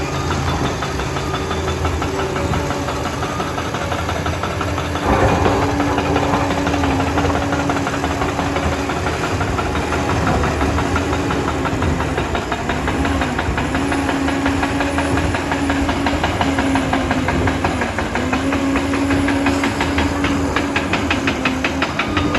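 Liebherr PR 746 bulldozer's diesel engine running steadily under work, its pitch sagging briefly a few times as it takes load. A sudden louder noise comes in about five seconds in.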